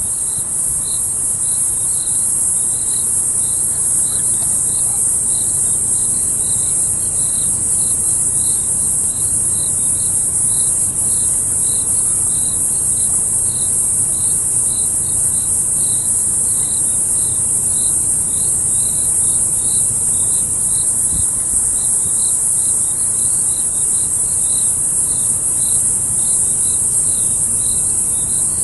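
Insect chorus: a steady, shrill high-pitched drone throughout, with a separate lower chirp pulsing about twice a second.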